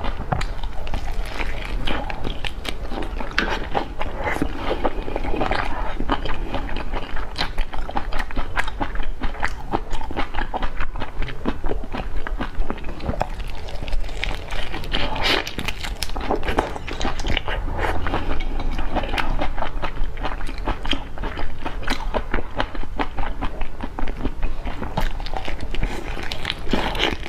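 Close-miked eating: a person biting and chewing whole prawns in chili sauce, the shells crunching in quick, irregular crackles.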